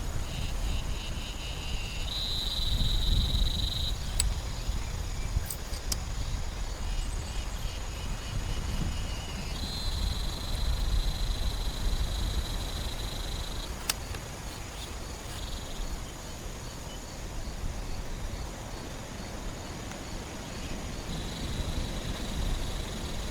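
Insects calling: high, finely pulsed trills of two to four seconds each, starting and stopping several times, over a low steady rumble, with a few sharp ticks.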